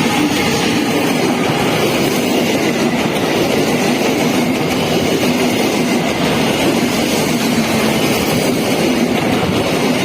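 Passenger train hauled by a CC 201 diesel-electric locomotive passing close by, a steady loud rumble of wheels on the rails.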